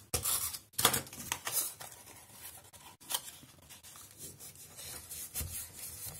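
Cardstock rustling and rubbing as hands fold and press the sides of a small paper box together. A few louder scratchy strokes come in the first two seconds, then softer rustling.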